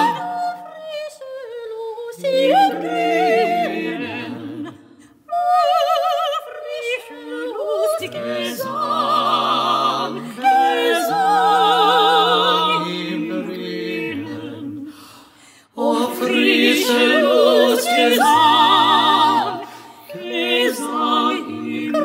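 Mixed vocal quartet of soprano, alto, tenor and bass singing an unaccompanied classical part-song in German, the voices moving in harmony with vibrato. The singing pauses briefly about four seconds in and again about fifteen seconds in.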